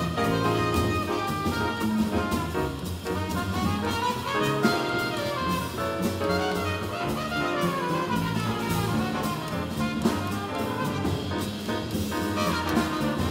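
Jazz trumpet playing a solo line over double bass and a drum kit with cymbals, with falling runs about halfway through.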